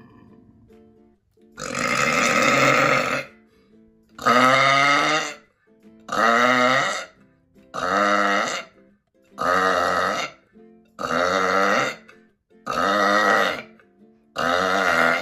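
A person deliberately forcing out a rapid series of about eight loud, powerful burps, each lasting about a second and coming every one and a half to two seconds, the first starting about a second and a half in. Faint background music runs underneath.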